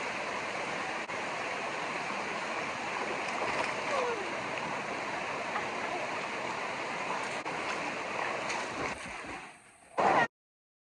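Steady rush of water falling at a waterfall, with a faint voice briefly heard under it. About nine seconds in the rush fades, a short loud burst follows, and then the sound cuts out completely.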